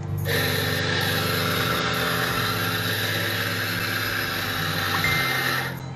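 Sanremo espresso grinder running steadily as it grinds coffee into a portafilter, a motor hum under a grinding hiss, stopping shortly before the end.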